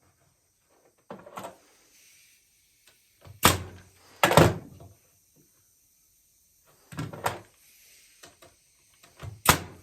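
Sourwood chair slats being knocked and set down on a wooden workbench as they are shifted into position: a handful of separate wooden thunks, the loudest two about three and a half and four and a half seconds in.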